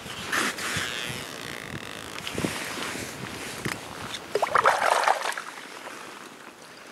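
Fishing line being pulled up by hand through a hole in the ice, with soft rustling, then a largemouth bass splashing in the water of the hole for about a second, some four and a half seconds in, as it is brought to the surface.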